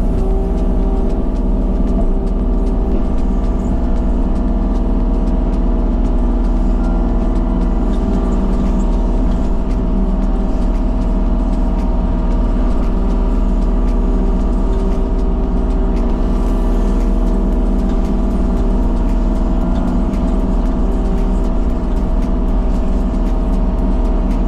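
Kubota KX033-4 mini excavator's three-cylinder diesel engine running steadily at constant throttle, with small clicks throughout.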